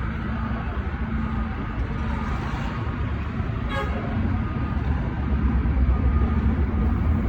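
Road traffic running steadily, growing a little louder near the end, with a short horn toot about four seconds in.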